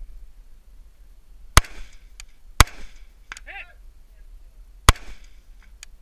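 Three rifle shots, the first two about a second apart and the third about two seconds later.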